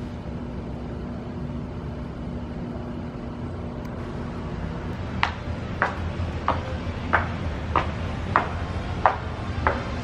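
Dress shoes clacking step by step on stairs, about eight hard clicks at an even walking pace starting about five seconds in, over a steady low hum of street traffic.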